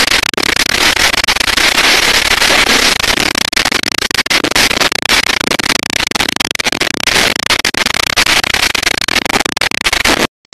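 Violent downburst storm: very strong wind driving heavy rain against surfaces, a loud, dense crackle of countless rapid impacts that cuts off suddenly near the end.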